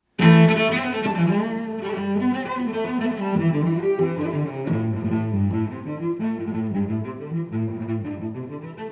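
Background music: a melody of low sustained notes that starts abruptly.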